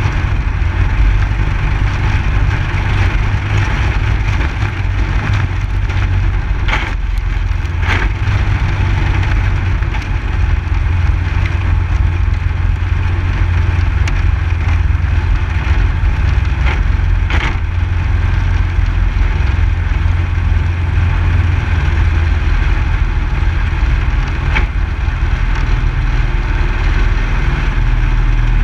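Mini cup race car's engine running steadily at low speed as the car rolls along a dirt and gravel surface, heard close up with a deep steady hum. A few sharp knocks or rattles break through, around seven, eight and seventeen seconds in.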